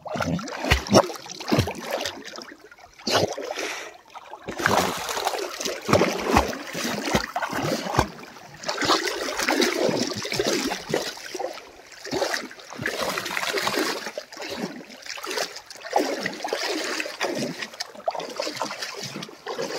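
Irregular splashing and sloshing of river water as a Labrador puppy paddles, with many short sharp splashes. It becomes fuller and more continuous from about four seconds in.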